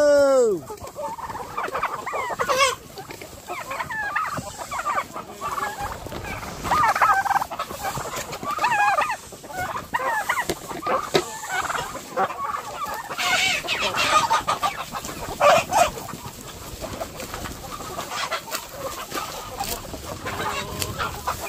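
A flock of chickens clucking, many short overlapping calls.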